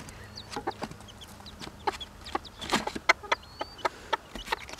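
Mother hen clucking in many short, sharp notes, with her chicks peeping in brief high whistles.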